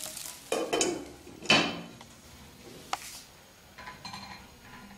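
A metal spoon clattering and clinking against cookware and dishes: a few knocks and scrapes in the first second and a half, the loudest among them, then single sharp clinks about three and four seconds in.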